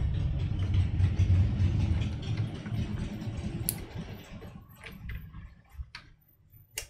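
Handling noise from cables being worked by hand through the rubber cable grommets of a PC case: a low rustling rumble that fades out about halfway through, then a few sharp, separate clicks.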